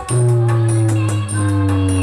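DJ remix music played loud through a DJ sound system as a bass test: a heavy, sustained bass note comes in at the start, under a slowly falling tone and quick, steady percussion ticks.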